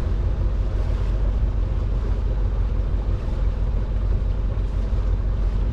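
Sailboat's auxiliary engine running steadily under way, a low, even rumble while motoring in toward a harbour channel.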